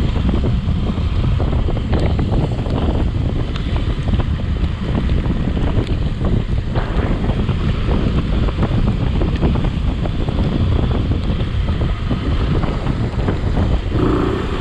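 Wind rushing and buffeting over the microphone of a camera mounted on a moving vehicle: a loud, steady rumble with scattered small knocks.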